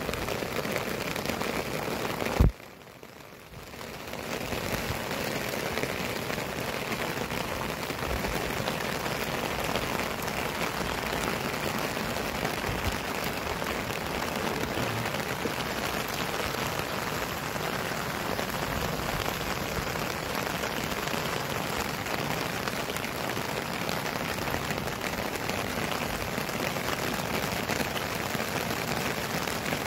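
Heavy, torrential rain falling steadily, a continuous hiss of drops hitting wet surfaces. A click about two and a half seconds in is followed by a brief quieter stretch before the rain noise returns.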